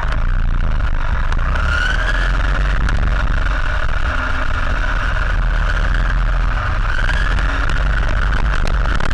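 RC car's motor whining, rising in pitch as it speeds up about two seconds in and again near the end, over a heavy rumble of vibration and track noise. Heard from inside a waterproof case stuck to the car's body.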